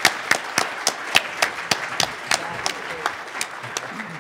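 Audience applauding, with single sharp claps standing out about three or four times a second over the crowd's clapping; it starts to die away near the end.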